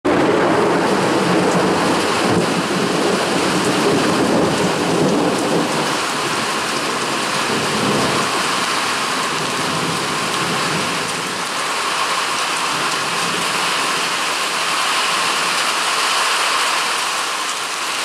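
Heavy rain falling steadily, with a low rumble of thunder that is strongest in the first few seconds.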